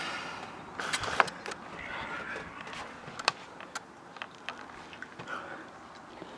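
Scattered sharp clicks and knocks over faint background noise, the loudest about a second in and again just past three seconds.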